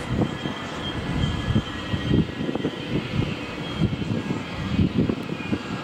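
Intercity coaches rolling across a steel truss railway bridge: a steady rumble of wheels on rails, with frequent irregular low knocks and faint high ringing tones above it.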